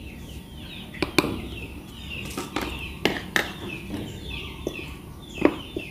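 A metal spoon and fork clicking against a glass mixing bowl a few times as flour is tipped and spooned in. Behind it a bird keeps chirping, short falling chirps repeated throughout.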